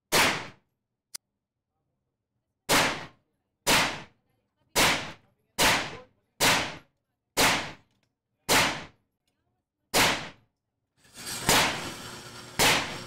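Gunshots fired one at a time at an indoor shooting range: about eleven sharp reports roughly a second apart, with a longer gap after the first. A steady hiss comes up near the end.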